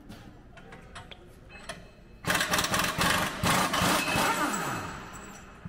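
Pneumatic impact wrench working at a train bogie's axle box, rattling loudly for about two seconds from a little past two seconds in, then winding down with a falling pitch.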